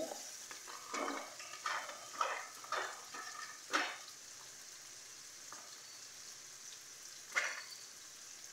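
Tomato-and-onion base frying in a pan with a steady sizzle. Over the first few seconds there is a run of short sounds as handfuls of sliced carrots drop in, and one more sharp one near the end.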